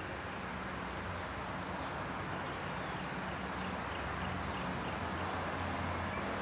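Steady outdoor background hiss with a low hum, and a few faint high chirps.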